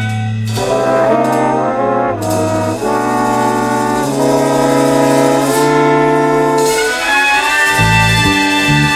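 Jazz big band playing: the brass section, trumpets and trombones, comes in with full chords about half a second in and moves through a chord progression over the bass line, with a low bass figure coming forward again near the end.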